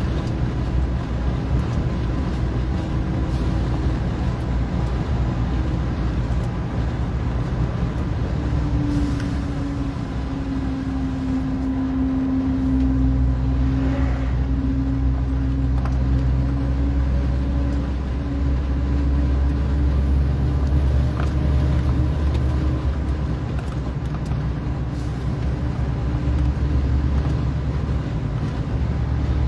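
Heavy truck's diesel engine running steadily on the road, heard from inside the cab, with road and tyre noise. The engine note drops about a third of the way in, and its low drone grows stronger a few seconds later.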